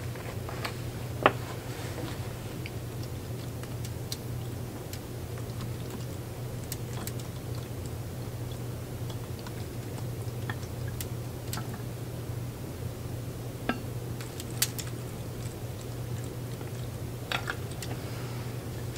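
Scattered small clicks and taps of a metal measuring cup and plastic bottles being handled while hydrogen peroxide is measured and poured into a plastic water bottle, over a steady low hum.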